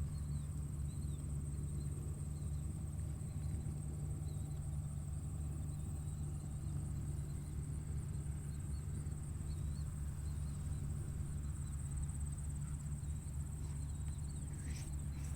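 Tractor engine running steadily with a low, even drone. A steady high-pitched insect or cricket trill runs over it, with faint small chirps.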